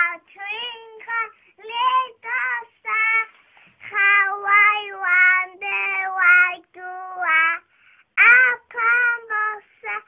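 A young child singing unaccompanied in a high voice, a song in short phrases with some longer held notes.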